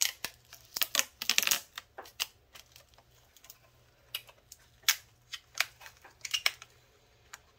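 Hands handling a stainless steel stovetop shelf while peeling the backing off its adhesive magnet strips: irregular sharp clicks and crackles, densest about a second and a half in, then scattered ticks.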